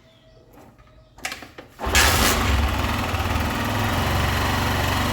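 Cold start of a Honda Titan 2000's single-cylinder pushrod engine, freshly fitted with a new cam lobe, rocker arm and rocker shaft: a few short knocks, then it catches about two seconds in and runs steadily.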